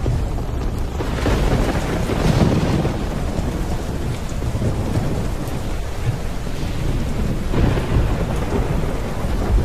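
Heavy rain pouring down in a thunderstorm, with low rumbles of thunder swelling about a second in and again near the end.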